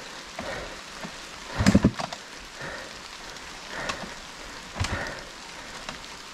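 Steady hiss of rain falling, with a few short louder sounds breaking through; the loudest comes about a second and a half in.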